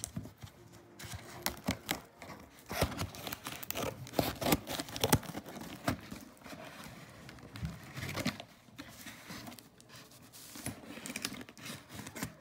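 A cardboard shipping box being handled and torn open, with irregular tearing, crinkling, scrapes and knocks.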